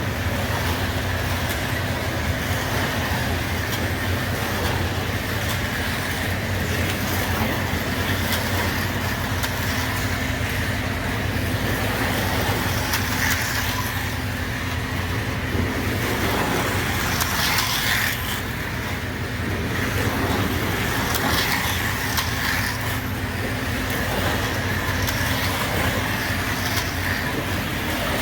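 O gauge model diesel locomotive running on track, its sound system playing a steady diesel engine rumble over the wheels' rolling noise on the rails.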